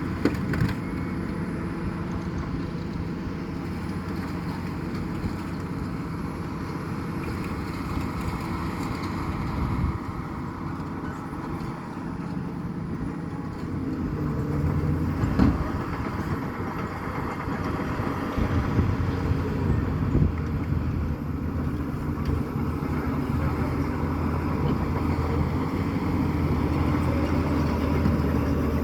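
Heavy diesel machinery engine running steadily at a dirt-spreading job, its note growing stronger about halfway through, with a couple of short knocks.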